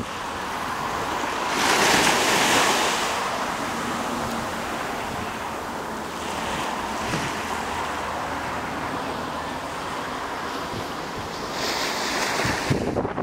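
Blustery wind rushing and buffeting the microphone, with strong gusts about two seconds in and again near the end.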